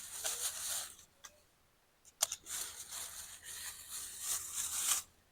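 Stuffed jalapeno poppers sizzling on campfire coals: a crackling hiss with scattered sharp pops, which drops out briefly about a second and a half in.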